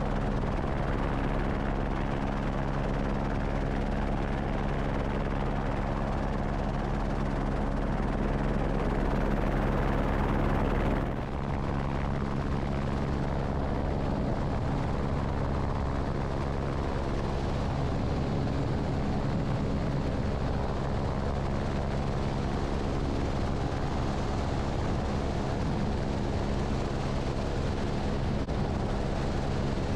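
Esquilo AS350 B3e helicopter in flight, its turbine and rotor giving a steady drone with an even stack of tones. About eleven seconds in a deep low hum drops away after a brief dip, and the drone carries on unchanged in character.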